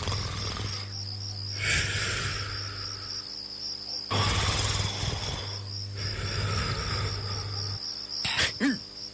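A cricket chirps steadily in a fast pulsing trill, over a sleeper's heavy snoring breaths: a long hissing breath about every two seconds. A brief sharper sound comes near the end.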